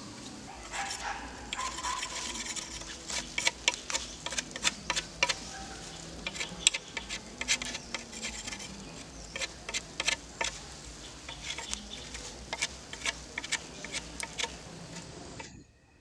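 Knife blade shaving a peeled wooden stick to a point: a quick, irregular series of short scraping strokes, a few a second, which cuts off suddenly near the end.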